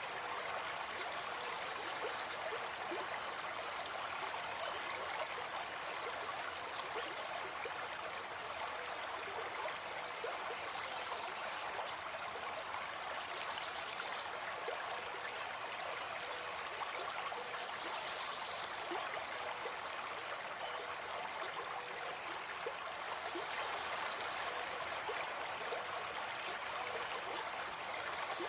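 A stream flowing steadily, an even, unbroken rush of running water.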